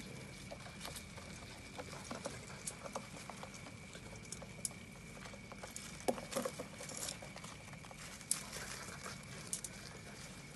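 Dry dead leaves rustling and crackling in scattered bursts as they are handled and pushed aside. A faint, steady high tone runs underneath.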